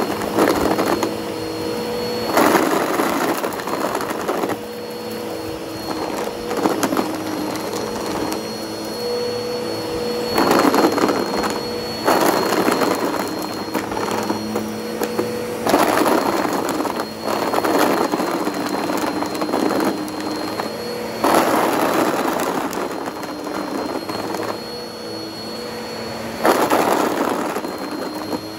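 Bissell OnePass upright vacuum cleaner running, its motor giving a steady hum with a thin high whine. About every two to four seconds there is a louder surge of noise as it is pushed forward over the carpet, picking up pencil-top erasers.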